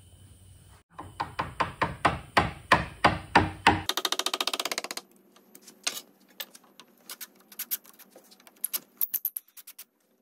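Quick series of hammer blows on wood, a dozen or so strikes over about three seconds. After that comes a fast run of clicks lasting about a second, then scattered light clicks and taps.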